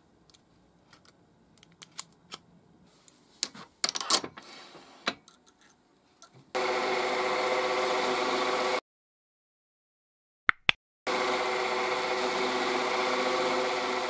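Small metal bolt action pen parts clicking and tapping as they are fitted together by hand. Then a lathe runs steadily, spinning a cloth buffing wheel on its spindle. The sound cuts off suddenly, there are two brief clicks, and the lathe runs again.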